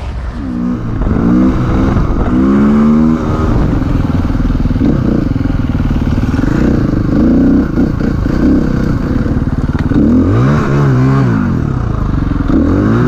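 KTM EXC-F 350 enduro motorcycle's single-cylinder four-stroke engine revving up and down over and over while riding over packed snow and ruts, its pitch rising and falling with each throttle blip. Near the end come two sharp rev sweeps.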